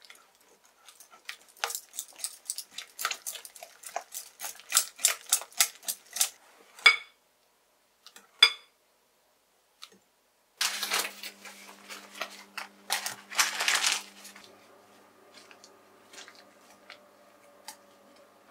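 Wire balloon whisk beating batter in a glass bowl: quick clicking strokes, then two ringing taps of the whisk on the bowl around 7 and 8.5 seconds in. After a short pause comes a burst of fast whisking about 11 to 14 seconds in.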